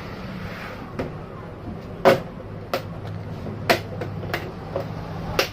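Plastic locks of a Dell Inspiron 3477 all-in-one's base cover clicking and knocking as the cover is pressed and worked loose: about six sharp clicks, the loudest about two seconds in, over a steady low hum.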